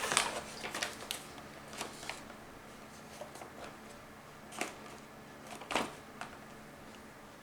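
Small objects being handled at a table: a few scattered light clicks and rustles, the clearest about four and a half and six seconds in, over a quiet room.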